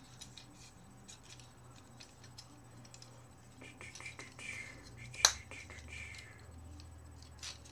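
Small plastic clicks and rubbing as the parts of a Transformers Prime Deluxe Ratchet action figure are moved and tabbed together during transformation, with one sharp snap about five seconds in.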